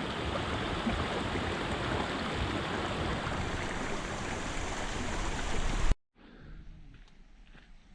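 Steady rushing of flowing water that cuts off suddenly about six seconds in. Only faint outdoor background with a few light clicks remains after it.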